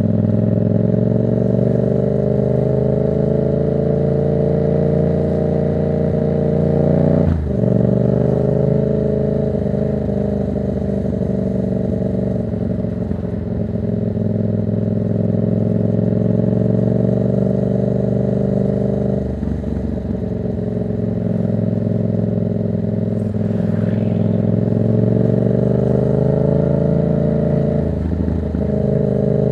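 Yamaha MT-07's 689 cc parallel-twin engine, breathing through a Black Widow exhaust with no dB killer, pulling through the gears. The engine note climbs steadily and drops with an upshift about seven seconds in, again at about nineteen seconds, and once more near the end.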